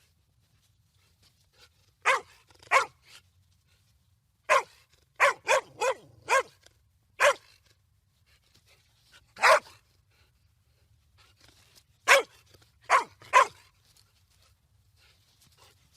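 A dog barking in short, sharp barks with pauses between, about a dozen in all, including a quick run of five in the middle.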